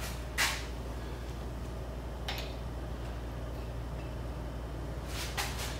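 Short clicks and scrapes of a hand wrench working on a connecting rod clamped in a bench vise: one about half a second in, another about two seconds in, and two close together near the end. A steady low hum runs underneath.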